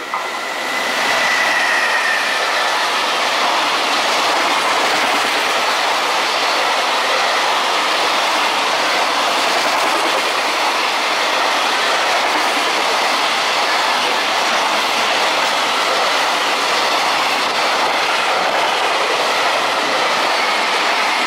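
Freight container train passing at close range: an electric locomotive, then a long line of container wagons running by steadily with a loud rumble and clickety-clack of wheels over rail joints. A short high tone, falling slightly, comes about a second in as the locomotive goes past.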